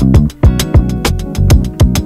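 Background music with a steady beat of about four hits a second over sustained low notes.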